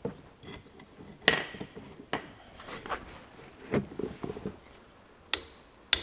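Scattered knocks and tool clatter, then near the end two sharp metallic hits: a ball-pein hammer striking the end of a 12 mm Allen key to tighten the oil plug in a tractor's front hub.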